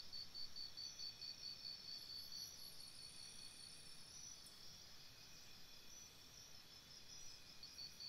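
Faint crickets chirping: a high, even pulse of about four chirps a second over a low hiss, dropping back in the middle and coming back stronger near the end. A thinner, higher insect buzz joins for a couple of seconds about two seconds in.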